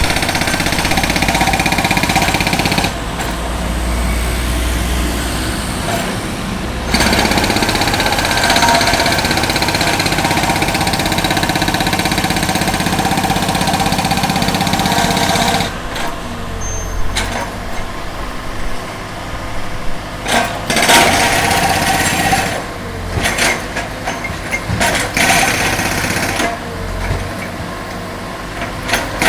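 Concrete breaker hammering into a road surface in a fast, continuous rattle, with a machine engine running under it. About halfway through the hammering turns into short bursts with brief pauses.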